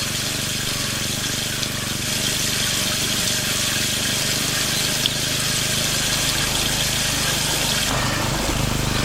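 Small DIY mini water pump and its motor running steadily with water spraying, a low hum under a steady hiss. The hum shifts near the end.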